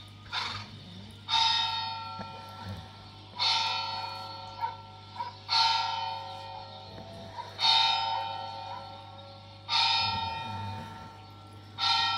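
A bell tolling, six strikes about two seconds apart, each ringing on and fading before the next. A steady low hum runs underneath.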